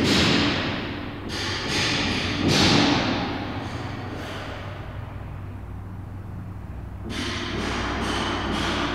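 Ambient soundtrack over a steady low hum: two swelling rushes of noise, one at the start and one about two and a half seconds in, each fading away, then a quieter stretch until a denser textured layer comes in about seven seconds in.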